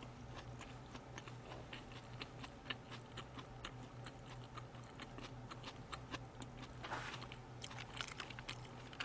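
Quiet chewing of sushi close to a microphone: faint, irregular wet mouth clicks, over a low steady hum.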